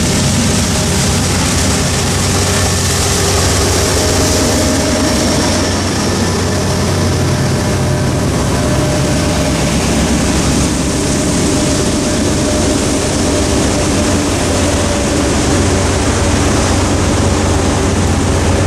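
The tail of a loaded coal train rolls over the crossing: hopper cars rumbling on the rails, with the rear distributed-power locomotive, a GE AC44C6M diesel, running as it goes by. Once the train has cleared, pickup trucks drive over the crossing close by. The noise stays loud and steady throughout.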